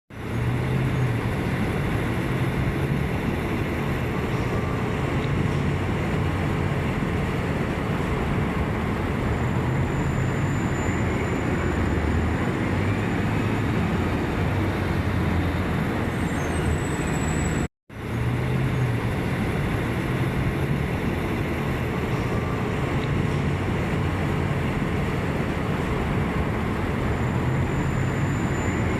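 Steady rush of running water mixed with the low rumble of road traffic, with a momentary dropout a little past the middle.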